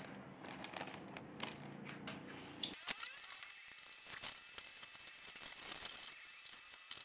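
Paper rustling as a receipt is handled. About three seconds in, the sound changes to plastic bubble wrap crinkling and crackling as it is handled and cut open with scissors, with one sharp click.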